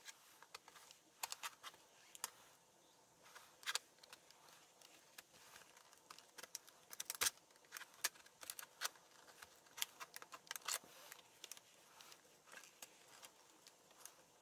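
Plastic snap clips of an HP Pavilion laptop's case clicking and popping as a plastic pry tool is worked along the seam, in irregular sharp clicks with the loudest about seven seconds in.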